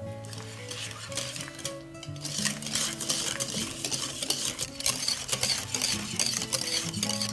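Wire balloon whisk beating thick cream cheese and sugar in a glass bowl: quick, rhythmic scraping and clicking of the metal wires against the glass. Soft background guitar music plays underneath.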